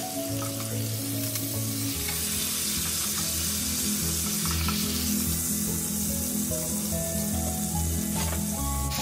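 Wagyu steak sizzling steadily in the fat of a hot frying pan, with background music playing along.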